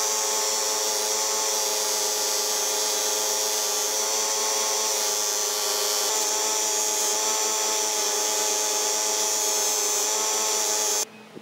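Bench grinder running with a cloth buffing wheel while small copper katana fittings are polished against it: a steady motor hum with a high hiss, cutting off suddenly near the end.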